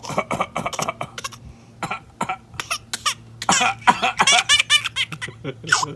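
A baby laughing in short, breathy bursts mixed with coughs. A run of pitched giggles comes between about three and a half and five seconds in.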